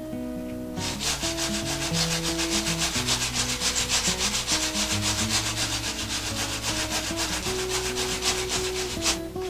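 Quick back-and-forth hand rubbing strokes on the table top, a steady scratchy hiss in rapid even pulses that starts about a second in and stops near the end, over background guitar music.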